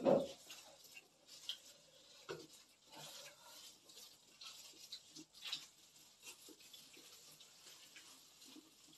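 Quiet, scattered clicks and rustles of eating at a table: thin plastic food gloves crinkling as hands pick pieces of braised pork trotters off the plates, with chewing.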